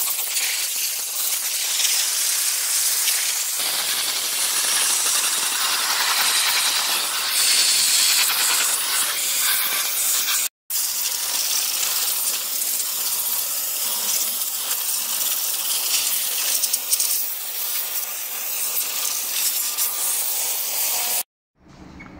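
Jet of steam from a steam cleaner's wand hissing steadily as it blasts over an engine bay. It breaks off for an instant about halfway through and stops about a second before the end.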